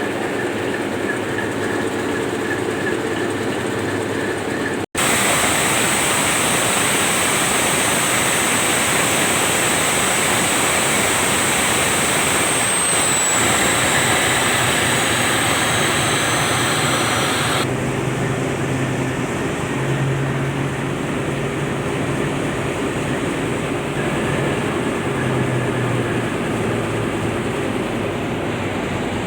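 Steady, loud machinery noise from the tugboat's twin main diesel engines under way. The sound changes abruptly twice, about five seconds in and again past the middle, as the audio cuts between spots. A faint falling whistle comes in the middle stretch.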